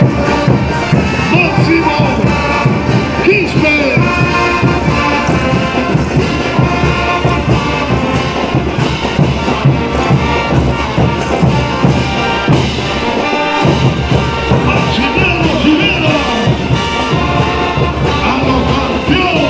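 Live brass band with drums and cymbals playing an Andean folk dance tune at a steady beat, loud throughout.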